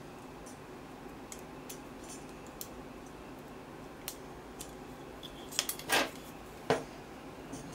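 Small metallic clicks and clinks from hand tools and metal parts as a timer relay is taken apart. They come sparsely at first, then several louder clicks close together about six seconds in, and one sharp click shortly after.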